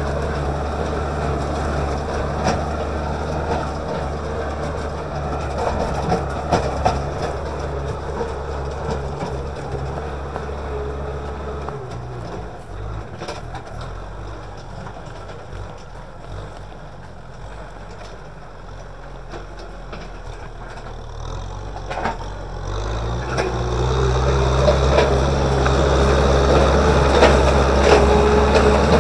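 Kubota M6040SU tractor's diesel engine running steadily under load while it drags a tillage implement through the soil. It drops away, quieter, from about twelve seconds in, then grows loud again as the tractor comes close near the end, with occasional short clanks.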